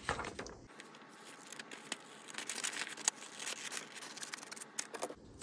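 Scissors cutting a sheet of paper along a long diagonal line: a run of short, crisp snips with the paper rustling, from about a second in until near the end.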